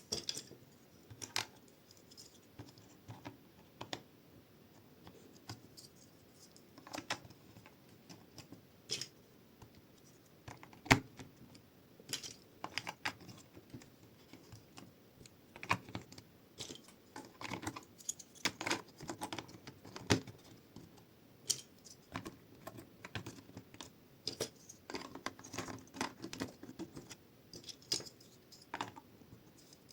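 Plastic LEGO bricks clicking and clattering as pieces are handled and pressed together: irregular sharp clicks, with one much louder snap about eleven seconds in.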